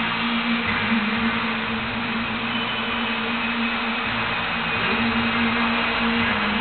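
Bellagio fountain water jets shooting and falling back, a steady rushing hiss of spray, with the show's music playing underneath in long held notes.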